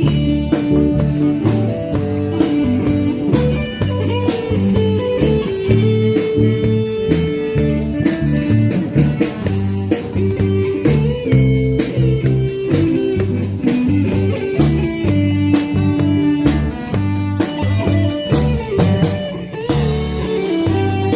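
Band music with no singing: a guitar-led instrumental passage over bass and a drum kit beat.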